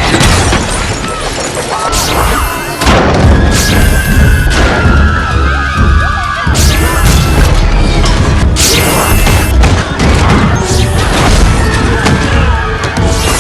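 Film soundtrack: dramatic music under a run of loud booms and crashing impacts, with a telekinesis sound effect dubbed in.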